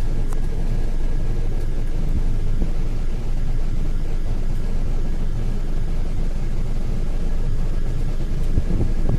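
Hino RM280 coach's diesel engine idling, a steady low rumble heard from inside the passenger cabin.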